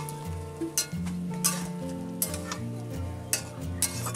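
Metal spatula scraping and knocking against an iron kadai about once a second, stirring vegetables that sizzle as they fry.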